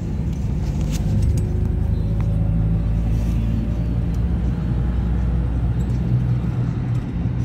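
Steady low rumble of a moving road vehicle.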